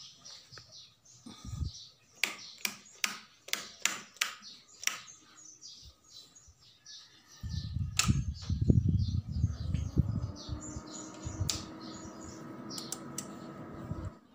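A run of sharp clicks as switches on the equipment rack are flipped on, with small birds chirping in the background. About halfway through a low rumble starts as the dxb power amplifier is switched on, followed by a hum that slowly rises in pitch.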